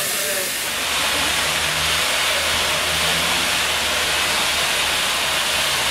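A small M.Th.B. steam locomotive venting steam with a loud, steady hiss that swells about a second in, over a low hum.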